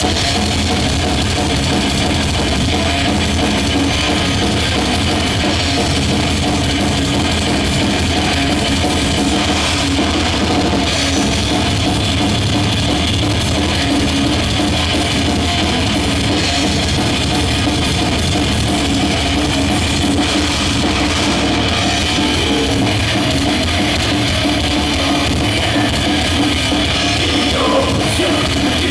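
Death/thrash metal band playing live at a soundcheck: loud, dense drum kit with cymbals and distorted guitars, running without a break.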